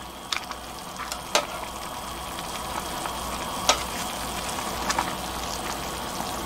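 Water at a rolling boil in a stainless steel pot, bubbling steadily and growing a little louder, as perilla leaf shoots blanch in it. A few sharp clicks of metal tongs against the pot.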